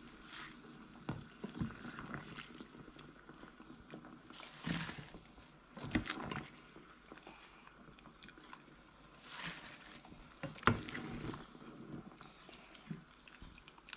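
A pot of prawns at a rolling boil, with water splashing and dripping as a slotted ladle scoops the prawns out, and a few sharp knocks of the ladle against the stainless pot.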